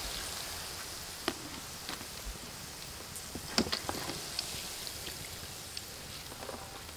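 Hot oil sizzling in a wok with a steady hiss and scattered crackles and pops while fried shallots are scooped out with a wire spider strainer.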